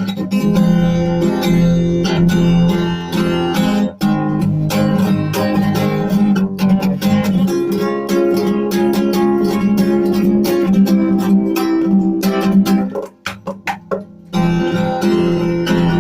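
Acoustic guitar strummed in a steady rhythm as the song's instrumental ending, with no singing. About three-quarters of the way through the strumming thins to a few separate strokes for a moment, then picks up again.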